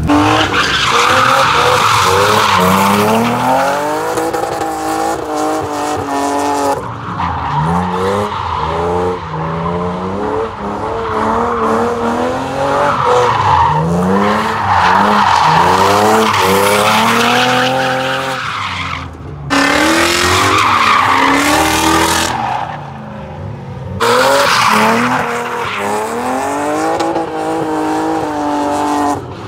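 BMW 3 Series cars drifting: the engines are revved hard and let off again and again, over the continuous squeal of the rear tyres sliding on the asphalt. The sound breaks off abruptly about three times, where one clip is cut to the next.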